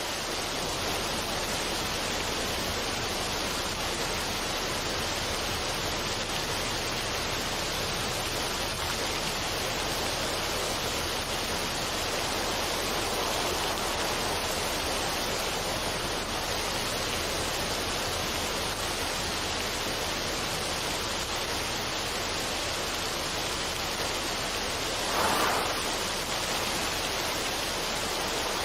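Steady, even rushing noise ambience, with one brief louder swell near the end.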